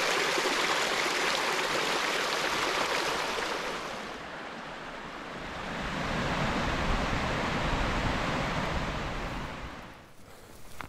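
Small mountain stream rushing and splashing over rocks, a steady wash of water noise that eases a few seconds in, swells again, and fades near the end.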